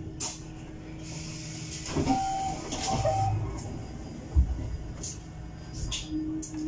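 Inside an electric city bus at a stop: a hiss about a second in, two short beeps around two and three seconds in, and a heavy thump near the middle as a passenger steps in by the door, over the bus's steady low hum.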